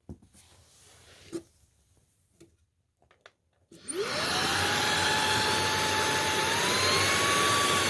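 VacLife VL732 cordless stick vacuum's brushless motor switched on about four seconds in, whining up quickly to a steady pitch over rushing air. The whine climbs a little higher near the end.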